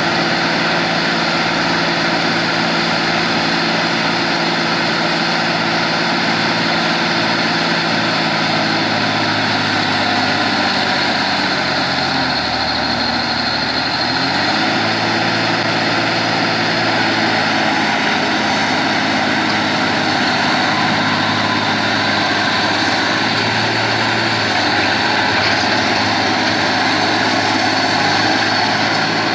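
Heavy diesel vehicle engine running steadily. About twelve seconds in its pitch drops for a couple of seconds, then climbs back up.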